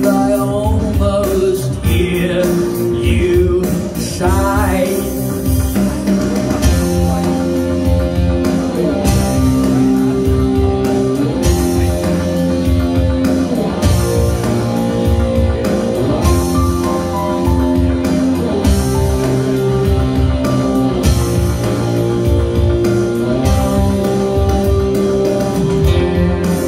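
Live rock music with electric guitar over a steady beat; a voice sings a wavering line in the first few seconds, then the music carries on instrumentally.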